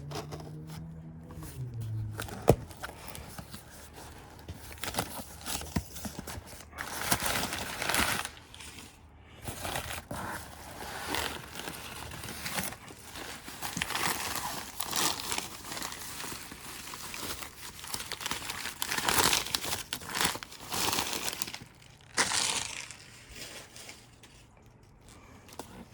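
Packaging being handled and unwrapped by hand, crinkling in irregular bursts.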